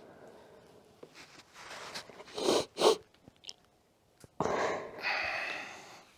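A person's forceful breathing: two sharp puffs of breath about two and a half seconds in, then a longer exhale starting about four and a half seconds in and fading away.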